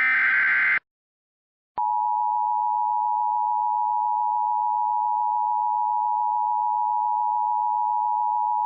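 Emergency Alert System tones: the last of the digital SAME header data bursts ends under a second in. After a gap of about a second, the EAS attention signal starts: a steady two-tone chord of 853 and 960 Hz sounded together, which announces the alert message to follow.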